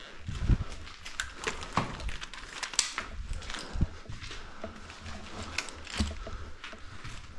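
Irregular crunching and rustling with a few dull thumps, consistent with a player moving on foot with gear brushing against the microphone.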